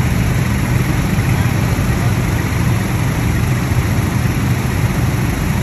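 ATV engine running steadily, a low drone with an even rush of noise over it.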